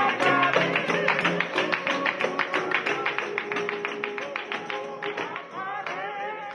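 Music led by a quickly strummed guitar, about five strokes a second, with a wavering melody line coming in near the end; the whole piece steadily fades out.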